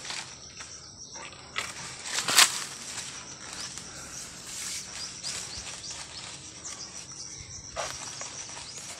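Leaves and branches rustling as a long bamboo pole is worked up among fruit clusters in a tree, with a sharper knock-and-rustle about two and a half seconds in. A steady high insect trill runs underneath.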